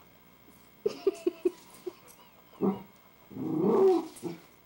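Pet dog vocalizing: four quick yips about a second in, a single bark, then a longer call of about a second near the end.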